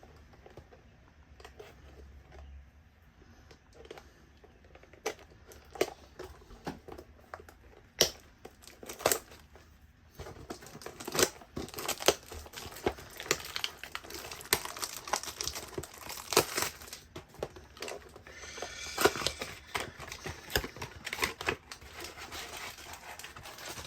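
Trading card packs being torn open and their foil wrappers crinkled, with the cards handled. Only a few scattered handling clicks at first, then steady crinkling and tearing from about ten seconds in.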